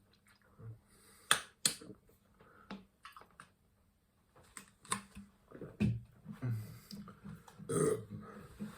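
A man burping several times after drinking carbonated cola, the loudest and longest burp near the end. A few sharp clicks come about a second in.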